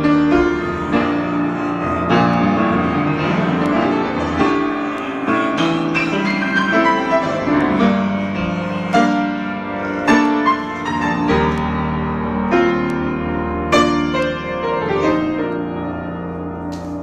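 Grand piano played solo in an improvised passage: a continuous flow of struck notes over sustained chords, getting a little softer near the end.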